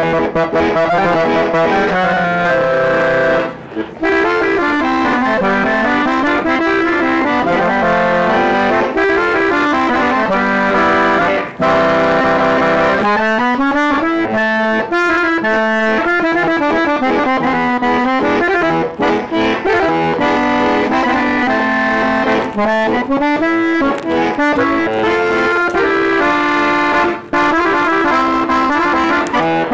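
Solo button accordion playing a lively melody over chords, with brief breaks about four and eleven seconds in.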